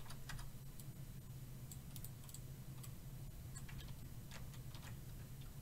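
Sparse, irregular light clicks from a computer mouse and keyboard being worked, over a steady low hum.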